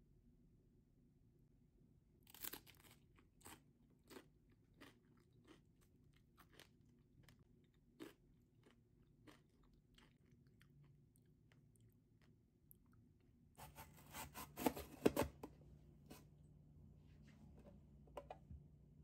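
Crisp seeded crackers loaded with guacamole being bitten and chewed, a sharp crunch every half second to second. Near the end comes a louder, denser flurry of knocks and crunches.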